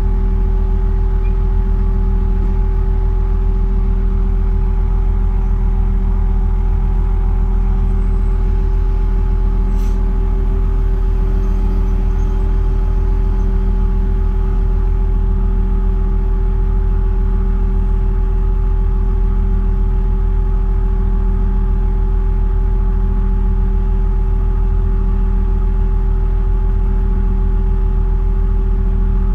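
Heavy diesel engine of earth-moving machinery running at a steady speed, heard from inside a cab: a constant, unchanging low engine note with no revving, and a faint click about ten seconds in.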